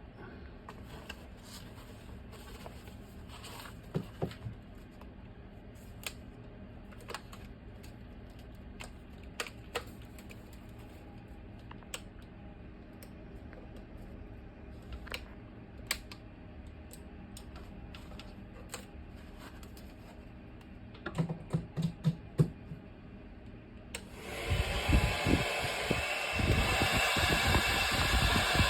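Low hum with scattered clicks and a quick run of handling knocks, then a hair dryer switched on near the end. It runs loud and steady with a rushing blow of air and an uneven low rumble.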